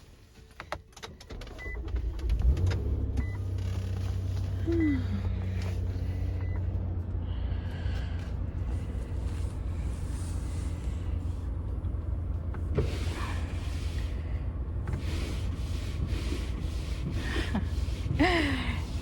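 Car engine starting about two seconds in and then idling steadily, after a few clicks from the door and keys. A few short high electronic chime beeps sound early on, with scattered knocks and rustling inside the car later.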